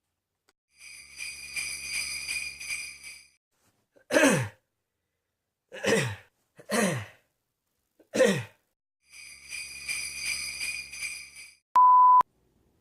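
Jingle bells shaken for about two and a half seconds, then four short coughs, each with a voiced tail that falls in pitch, then the jingle bells again. A short, steady, high beep comes near the end.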